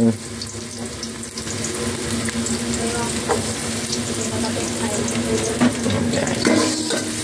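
Chopped garlic sizzling in hot oil in a metal pot as it starts to sauté, a steady frying hiss over a low steady hum. A few knocks of a metal ladle against the pot near the end.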